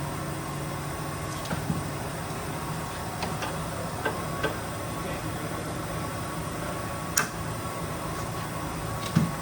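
Scattered light clicks and taps of hand tools on metal during work on a car's suspension, about eight in all, the sharpest about seven seconds in, over a steady background hum.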